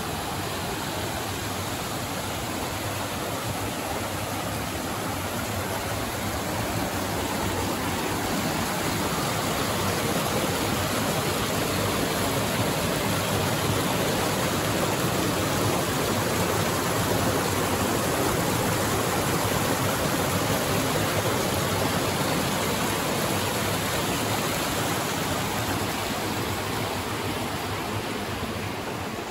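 Rushing river water, a steady hiss that swells louder through the middle and eases off near the end.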